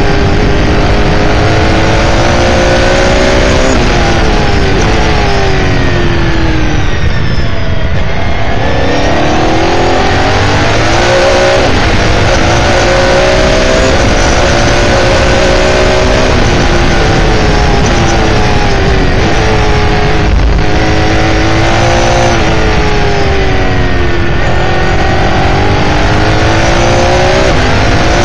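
S5000 race car's 5.0-litre Ford V8 at racing speed, heard on board: the engine note drops as the driver lifts and brakes, bottoming out about eight seconds in, then climbs again under acceleration. It falls and rises several more times through the corners.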